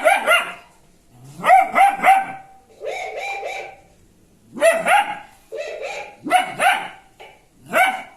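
Dog barking in quick bursts of two or three barks, about six bursts, with short pauses between them.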